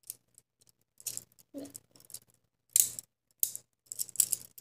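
Handcuffs being worked by hand with a handcuff key: five or so short bursts of clicking and chain rattle with quiet gaps between them.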